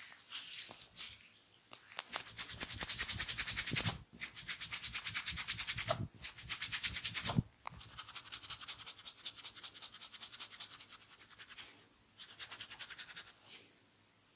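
Hands rubbing skin or hair briskly in a massage: runs of fast, even friction strokes, about eight a second, each lasting two to four seconds, with short pauses between.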